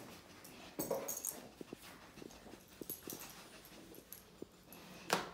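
Newfoundland dog sniffing and nosing among small cardboard boxes while searching for a birch scent: a run of short sniffs and small knocks, with one louder short burst near the end.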